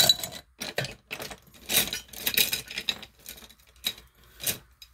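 Small makeup containers and pencils being handled and searched through: irregular clicks, taps and light rattling.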